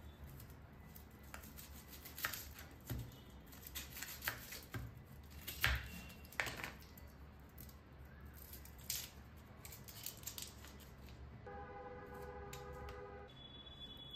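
Red onion being peeled with a kitchen knife over a plastic cutting board: scattered light clicks and knocks of the blade and the dry, papery skin tearing. Near the end a brief steady tone with several pitches sounds for a little under two seconds.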